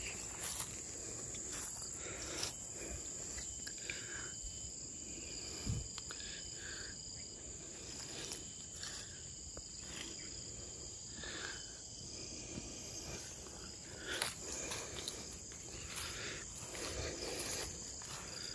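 Steady high-pitched shrilling of insects, with scattered faint rustles and light knocks.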